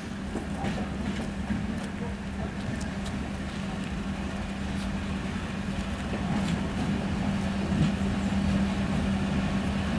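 2M62U diesel locomotive's two-stroke diesel engines running with a steady low drone as the train approaches, growing gradually louder.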